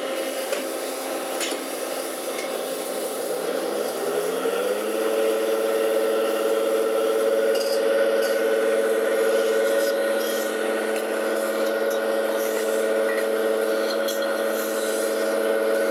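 Kato-Techno KS-700FA metal spinning lathe running, with a rubbing, scraping noise throughout. Its whine rises in pitch between about three and five seconds in, then holds steady.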